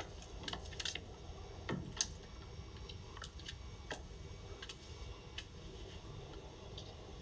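Faint, irregular small clicks and light taps, about a dozen, over a low steady hum; the sharpest click comes about two seconds in, just after a soft low thump.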